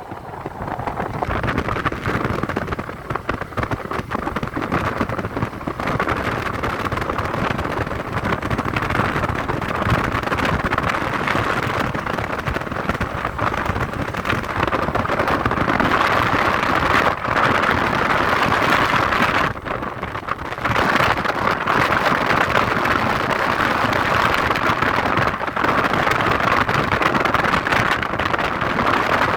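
Steady rushing noise of a vehicle moving along a road, with wind on the microphone. It dips briefly about two-thirds of the way through.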